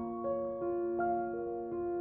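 Background piano music: soft, sustained notes played one after another, a new note entering about every half second.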